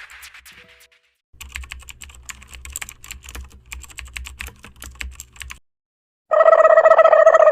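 Rapid typing on a computer keyboard, a dense run of key clicks lasting about four seconds. After a short pause, a loud buzzing tone sounds for just over a second.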